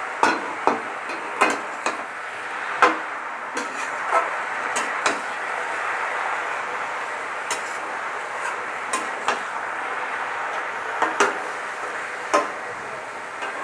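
Flat metal spatula stirring and tossing chopped spinach in a metal kadai, knocking and scraping against the pan about a dozen times at irregular intervals over a steady hiss from the pan on the gas stove.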